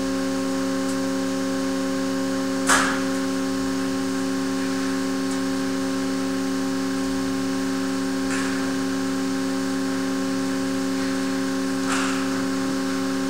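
Steady hum of a beam load-test rig, several tones held level throughout. A single sharp click sounds about three seconds in, with two fainter clicks later.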